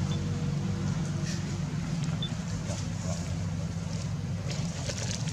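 Steady low engine hum, like a motor running at an even idle, with a few faint crisp rustles over it.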